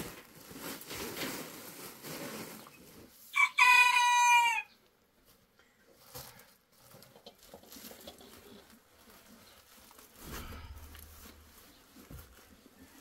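A rooster crows once, about three and a half seconds in: a single loud call lasting about a second.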